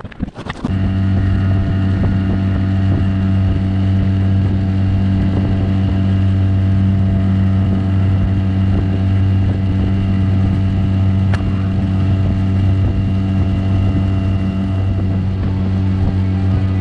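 Inflatable boat's outboard motor running at a steady speed, coming in abruptly about a second in and holding an even pitch.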